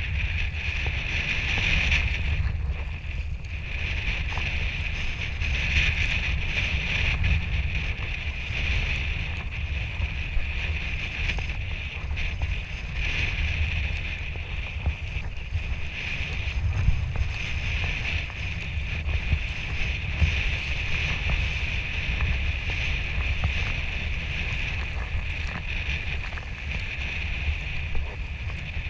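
Sea kayak under way: paddle and water hiss that swells and fades, over a steady low wind rumble on the microphone.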